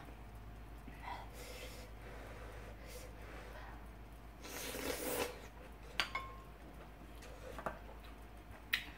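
Eating sounds: thick udon noodles slurped into the mouth about halfway through, with a few sharp clicks of utensils against the dishes and soft chewing.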